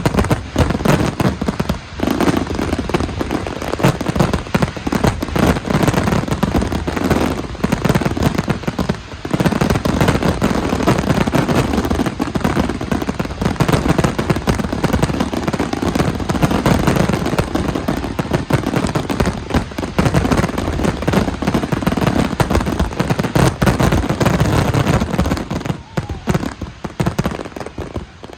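Fireworks and firecrackers going off in a dense, unbroken string of rapid bangs and crackles that dies away near the end.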